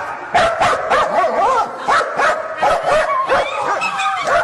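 A dog barking and yipping in a rapid, unbroken string, about three or four short calls a second, with whiny rises and falls in pitch.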